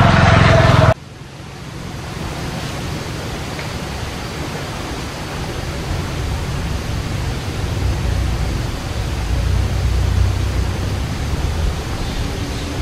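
A loud noise with a steady tone cuts off abruptly about a second in. Then comes a steady rushing noise with an uneven low rumble, like wind on the microphone outdoors.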